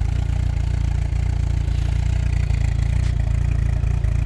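1986 Volkswagen Cabriolet's four-cylinder petrol engine idling steadily, just started after not running for over a month.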